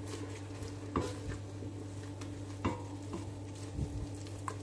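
A wooden spoon stirring flour into melted butter in a stainless-steel saucepan to make a roux, with a few sharp knocks of the spoon against the pan. A steady low hum runs underneath.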